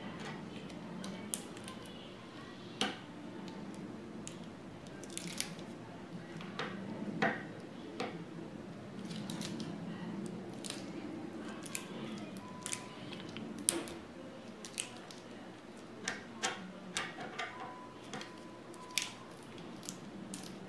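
Screwdriver turning a screw deep inside the wooden butt of an FN 49 rifle, reached through the buttplate: irregular small metallic clicks and short scrapes as the blade seats and turns, with light knocks of handling the stock.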